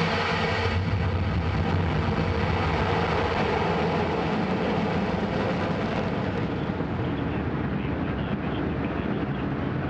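Antares 230 rocket's first-stage engines firing at liftoff: a loud, continuous rushing noise with a deep low rumble. The higher part of the noise eases a little after about six seconds as the rocket climbs away.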